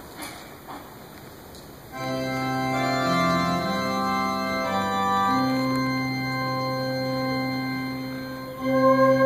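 Organ begins playing slow, sustained chords about two seconds in, after a short stretch of quiet room noise with a few small knocks. The held notes change every second or so, and the music grows louder and fuller near the end.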